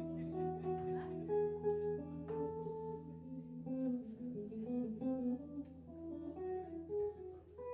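A live guitar, bass and drums trio playing: the guitar picks a quick, winding melodic line over sustained low bass notes.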